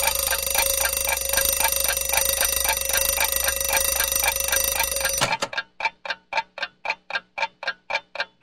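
An alarm clock ringing with a fast, even pulsing beat, which cuts off suddenly about five seconds in. A clock then ticks on alone, about four ticks a second.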